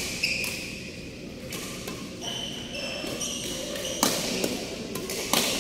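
Badminton shoes squeaking on a synthetic court mat, several short high squeaks, with sharp racket strikes on the shuttlecock a few times.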